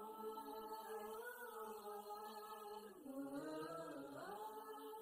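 Background music of held, chant-like voices sustaining long notes that shift pitch slowly, with a change about three seconds in.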